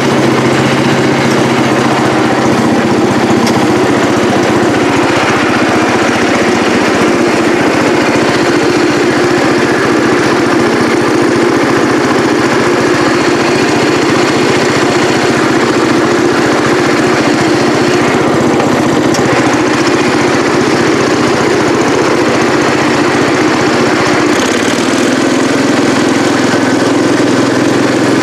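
Cub Cadet 108 lawn tractor's single-cylinder Kohler engine running steadily while the tractor is driven, its note changing slightly about three-quarters of the way through.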